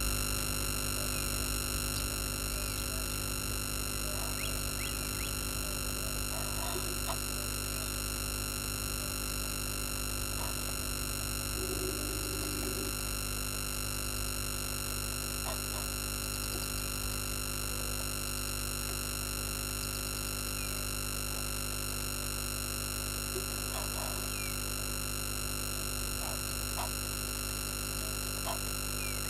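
Steady electrical hum made of many fixed tones at once, over which a few faint short chirps and calls of small animals come and go, one slightly longer call about twelve seconds in.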